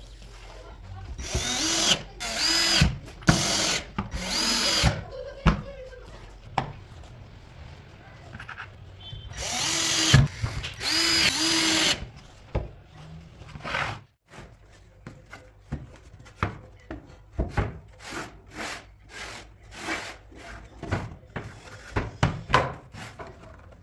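Power drill running in several short bursts, each spinning up and winding down, with a longer pair of bursts about ten seconds in. After that comes a run of light knocks and clicks.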